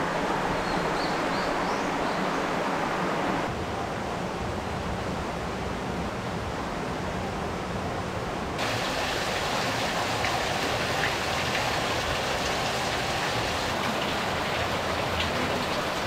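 A stream swollen after rain, rushing over rocks as a steady, even rush of water. Its tone changes abruptly twice, about three and a half and eight and a half seconds in.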